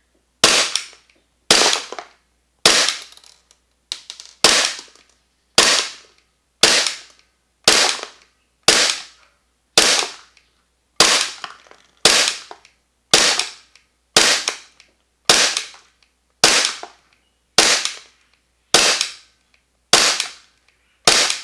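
VFC/Umarex Glock 45 gas blowback airsoft pistol fired in single shots, about one a second for some twenty shots, each a sharp crack of the gas shot and the slide cycling. The pistol is fitted with an aftermarket energy-saving cylinder bulb on its stock recoil spring.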